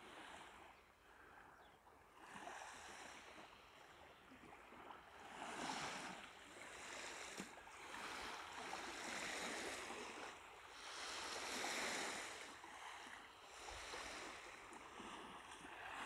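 Small waves of a calm sea lapping faintly on a sandy shore, each wash swelling and fading every second or two, starting after a couple of seconds of near silence.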